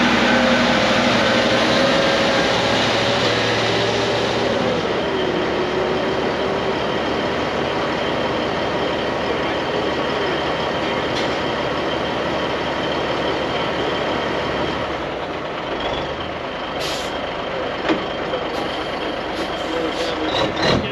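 Heavy diesel truck engine running; its pitch drops about four seconds in and then holds steady, with a thin steady high tone above it. Several short sharp air hisses come near the end.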